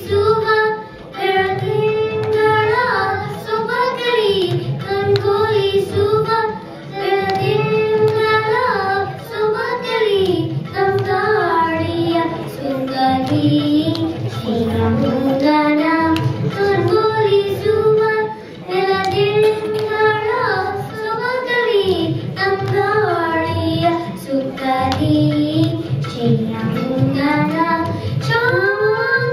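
Young girls singing a Kannada song in Carnatic style, the melody gliding and ornamented, with a few brief pauses for breath.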